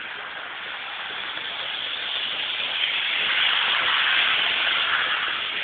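HO scale model train running on its track, a steady rushing rattle that grows louder as it passes close, peaking about four seconds in, then begins to fade.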